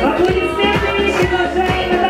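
Dance music with a steady kick drum, a little over two beats a second, and a melodic line over it.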